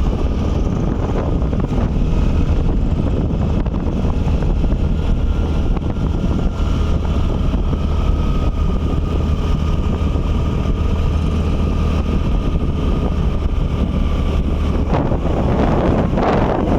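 Wind buffeting the microphone over a steady low rumbling noise, with a faint thin whine, growing louder and fuller near the end.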